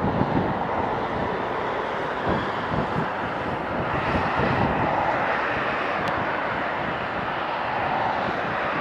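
Airbus A320-214 airliner's CFM56 turbofan engines, a steady jet rumble as it comes in to land, with wind buffeting the microphone in the first few seconds.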